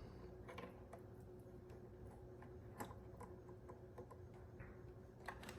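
Faint scattered clicks and ticks of a screw being driven by hand into a plastic coffee-maker housing.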